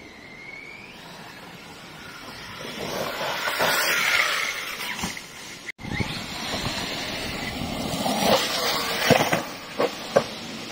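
Electric radio-controlled truck driving over rough ground: brushless motor whine and tyre noise, with a short rising whine at the start. A few sharp knocks come near the end.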